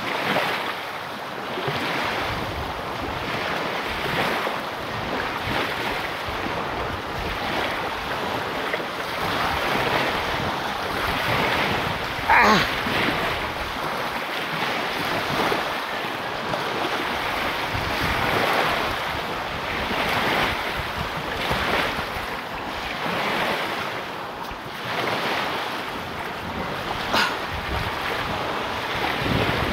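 Small sea waves breaking and washing on the shore in repeated surges every couple of seconds, with wind buffeting the microphone. A brief sharp sound stands out about twelve seconds in, and a smaller one comes near the end.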